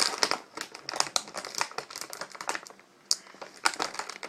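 Plastic cookie packaging crinkling and crackling as it is handled and opened. The crackles come quick and irregular, with a brief lull a little under three seconds in.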